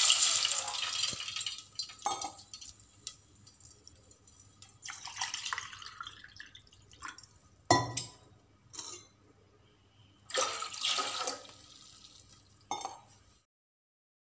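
Water poured from a glass into a steel pan of hot oil, in several pours: a long splashing pour fading out over the first couple of seconds, then shorter pours about five and ten seconds in. A couple of sharp knocks fall between the pours, and the sound cuts off to silence near the end.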